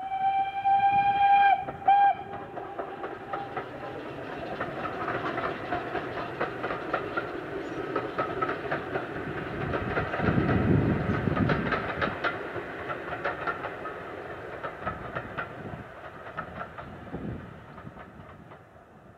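Steam locomotive 34092 City of Wells sounds its whistle, one long blast then a short one, then passes at a distance with its train of coaches, running with a steady rhythm of clicks that grows loudest about halfway through and fades near the end.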